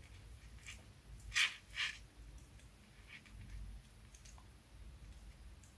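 Small clicks of jewellery pliers and a small metal ring as a jump ring is closed and secured. Two louder clicks come close together about a second and a half in, with fainter ticks scattered around them.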